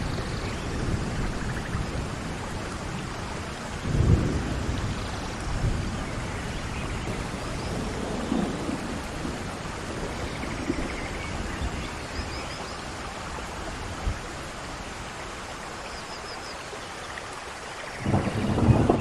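Steady rain falling, with low rolls of thunder rumbling through it, loudest about four seconds in and again near the end.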